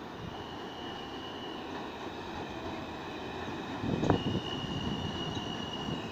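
New York City subway train pulling into an elevated station, running with a steady rumble and a thin high squeal from the wheels on the rails. One sharp, loud clack of the wheels about four seconds in.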